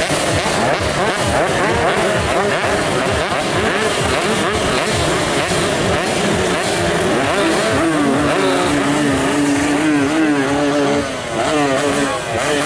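Several 125cc two-stroke underbone racing motorcycles revving together, their engine notes rising and falling over one another; in the second half one engine holds a steady high note.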